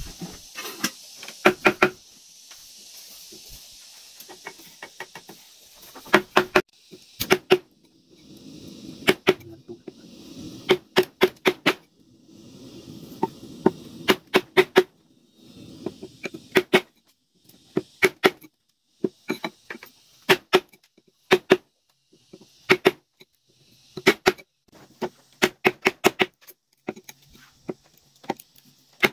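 A tool striking a wooden pole in quick bursts of two to five sharp knocks, with short pauses between bursts, as the pole is cut into for a house-frame column.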